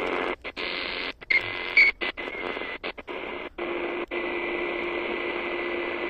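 Handheld radio receiver's speaker hissing with static as it is tuned down the longwave band, with no station coming through at 164 kHz. The hiss cuts out briefly several times as the frequency steps, and a steady low whistle comes in for the last couple of seconds.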